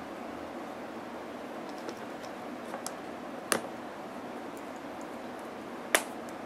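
Two sharp clicks about two and a half seconds apart, preceded by a few faint ticks, from small makeup items being handled, over a steady hiss.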